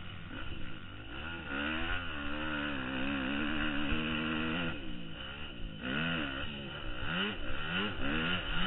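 Motocross bike engine revving up and down as the rider works the throttle through a lap. The revs climb steadily early on, drop sharply about five seconds in, then swing up and down quickly several times near the end.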